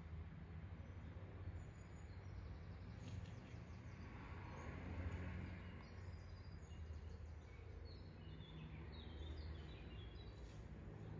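Outdoor ambience: a low, steady background rumble with small birds chirping in scattered short calls, a few about three seconds in and a run of quick, stepped chirps near the end.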